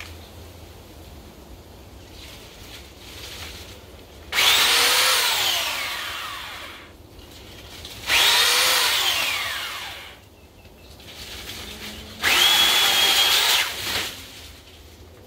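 Ozito electric pole trimmer's motor run in three bursts. The first two start suddenly and then wind down, falling in pitch and loudness over about two seconds. The third holds a steady high whine for about a second and a half, then cuts off.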